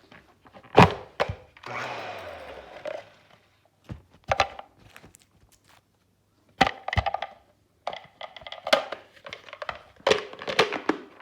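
Things being handled and set down on a hard surface: a string of separate knocks and thuds, with a second-long rustle about two seconds in and a busier run of clatter in the second half.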